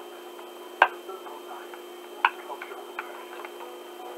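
Small plastic clicks and taps from an action figure's parts being handled and fitted: two sharper clicks, about a second and about two seconds in, then a few fainter ticks, over a steady low hum.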